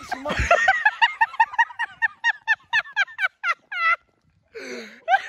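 A young man laughing hysterically in rapid high-pitched pulses, about five a second, with a brief break near the end for a breath before the laughter starts again.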